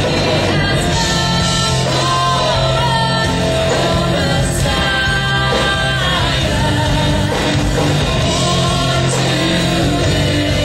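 Loud music with a singer over full band backing, the bass holding long low notes under a wavering vocal melody.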